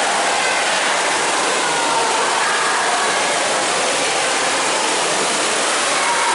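Steady rush of water in a thermal cave bath, an even, unbroken hiss.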